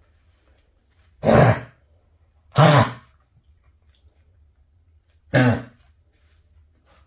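A dog coughing three times, each a short cough about half a second long: the first about a second in, the second near three seconds, the third about five and a half seconds in. The coughing is the sign of kennel cough (infectious tracheobronchitis).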